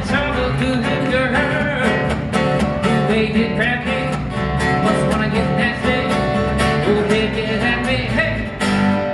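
Live country band playing: strummed acoustic guitars over electric bass with a steady beat, and a voice singing.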